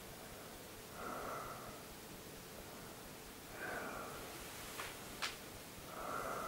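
A person breathing audibly and slowly, three breaths about two and a half seconds apart, with two faint clicks a little before the end.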